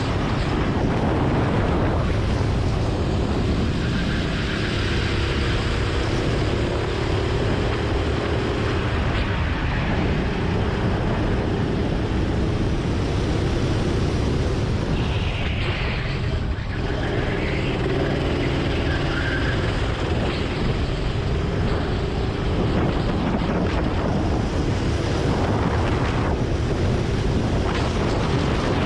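Go-kart engine running at speed on track, its note rising and falling with the throttle through corners.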